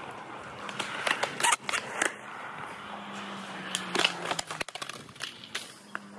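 Skateboards rolling on concrete, their wheels making a rough rolling noise broken by sharp clacks and knocks of boards hitting the ground. The loudest knocks come about one and a half seconds in and again about four seconds in, as a rider passes close by.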